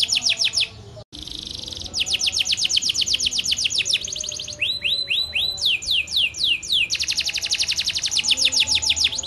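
Domestic canary singing a long, continuous song. It runs fast trills of high downward-sweeping notes, about a dozen a second, with a short buzzy stretch and slower descending whistles partway through. The song cuts out for a split second about a second in.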